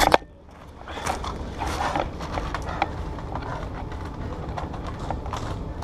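Footsteps and gear clattering on wooden steps and walls as players climb a narrow wooden structure: a sharp knock at the very start, then irregular knocks and clicks.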